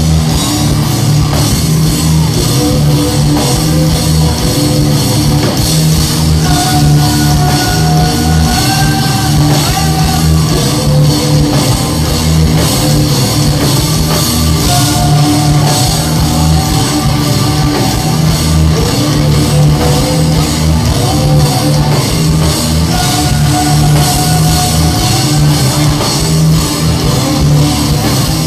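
Live heavy rock band playing at full volume: distorted guitars, drum kit and sung vocals, recorded from the crowd with a distorted, washed-out sound.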